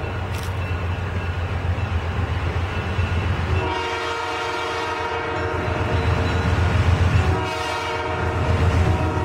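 Locomotive air horn sounding in long blasts, the chord breaking and starting again about four seconds in and again near the end, over the locomotive's low engine rumble.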